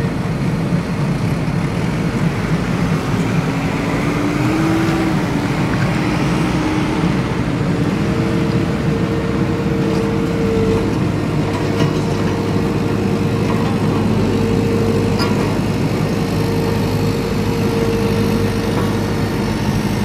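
Heavy vehicle engine running steadily, a low rumble with a held whine that rises slightly about four seconds in and then stays level.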